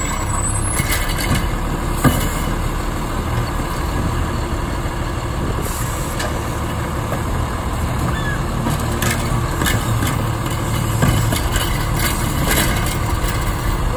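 A 2009 Autocar Autoreach automated side-loading garbage truck works a cart pickup: its diesel engine runs steadily while the hydraulic arm grabs a trash cart, lifts and tips it into the hopper, then sets it back down. Several sharp clunks and knocks from the arm and cart come about 2 s in, near the middle, and again near the end.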